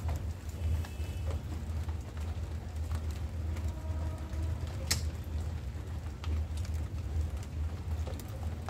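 Small clicks and taps of a screwdriver working screws on a wall-mounted electrical switch box, over a steady low rumble. One sharper click comes about five seconds in.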